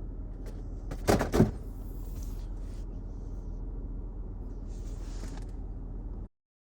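Two quick, loud knocks a little over a second in, over a steady low hum that cuts off abruptly near the end.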